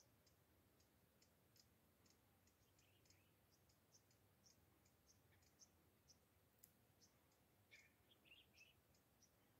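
Very faint, short high bird chirps repeating about three times a second, with a few lower calls near the end; otherwise near silence.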